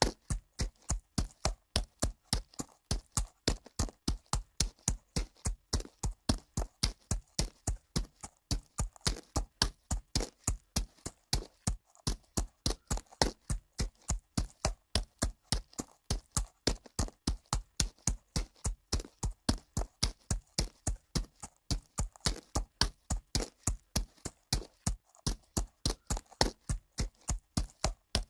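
Horse's hooves striking dirt at a walk, an even, unbroken clip-clop of about three to four hoofbeats a second.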